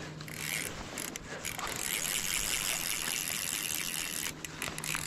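Fly reel's click-and-pawl drag ratcheting steadily as the spool turns with a hooked fish on the line. It breaks up into a few stop-start clicks near the end.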